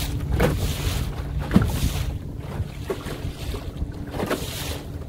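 Wind buffeting the microphone over lake water lapping at a canoe, with a faint steady low hum underneath and brief louder surges every second or so.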